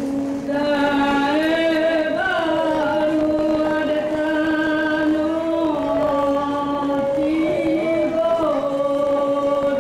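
Live traditional Minangkabau music for the dance: a chant-like melody of long held notes that steps up and down between pitches every second or two.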